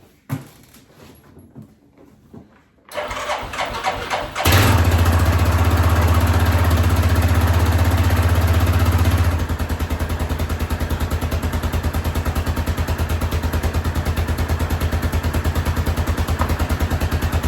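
2006 Yamaha Rhino 450's single-cylinder engine cranked by the starter about three seconds in, catching a moment later and running at a fast idle before dropping to a steady, evenly pulsing idle. It is a worn engine with a known knock, freshly filled with thicker 20W-50 oil, and no knock is heard at idle: the owner thinks it sounds better and may have been low on oil.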